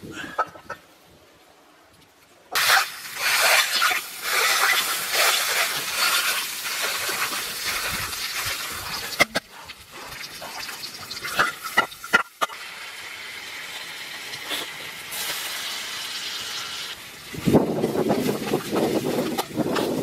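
Diced onion frying in hot fat in a metal pan over a wood fire: a loud, steady sizzle that starts suddenly after a couple of seconds of quiet, with a few sharp utensil clicks partway through. Near the end the sound turns lower and more liquid as a tomato-based mixture is stirred in the steaming pan.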